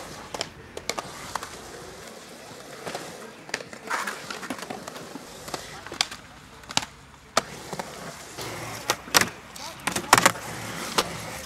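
Skateboard wheels rolling on concrete, with several sharp clacks of the board hitting the ramp coping, ledge and ground as tricks are popped and landed.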